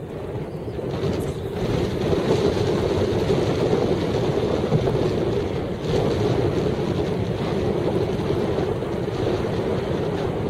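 Heavy wind buffeting the microphone: a steady rushing noise that swells about a second and a half in and stays loud.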